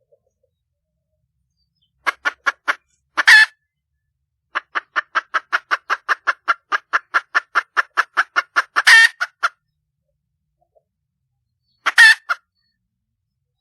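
A junglefowl hen calling for a mate: a short run of clucks and a loud squawk, then a long run of quick, even clucks, about four or five a second for some five seconds, ending in another loud squawk, and one more squawk near the end.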